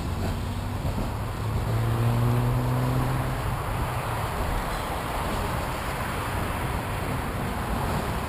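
Rumble and wind noise from the roof of a moving Sydney R-class tram, picked up as vibration carried up the trolley pole. A low hum sits under it for the first three seconds or so, then fades out.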